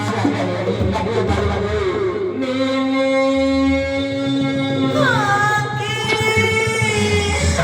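Singing with instrumental accompaniment: a voice holds one long note, then slides down in pitch about five seconds in, over a steady bass.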